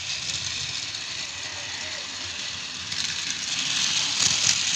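Small motorized toy train (Daiso petit train Narita Express) whirring along plastic track: a steady high motor-and-wheel whir that grows louder over the last couple of seconds as the train passes close by.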